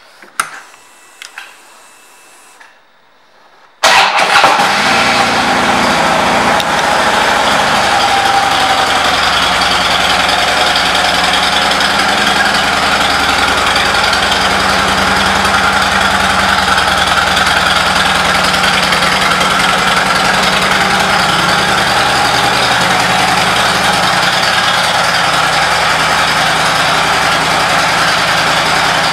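2009 Harley-Davidson Ultra Classic's V-twin engine, fitted with a Screaming Eagle air cleaner. After a few faint switch clicks it starts about four seconds in, then settles into a steady idle.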